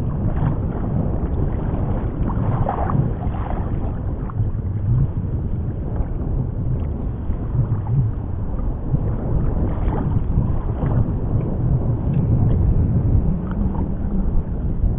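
Wind buffeting the microphone over choppy sea water, with small waves lapping and sloshing close by in an uneven wash.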